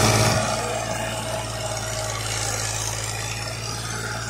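Fiat tractor's diesel engine running steadily as it pulls a ridger through the soil. The sound drops in level about half a second in.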